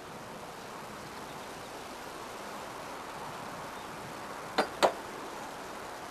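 Steady outdoor background noise, broken a little after the middle by two sharp clacks about a quarter second apart.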